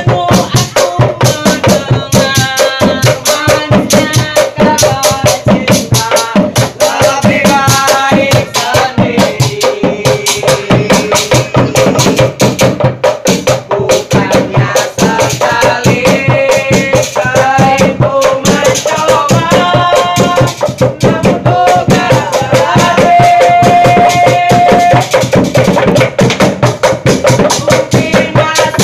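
Obrog sahur wake-up group chanting and singing together in the manner of football supporters, over a fast, steady beat on a hand drum and other percussion.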